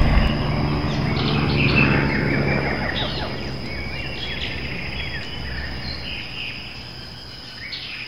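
Birds chirping with a steady high insect buzz, over a low rumble that slowly fades away.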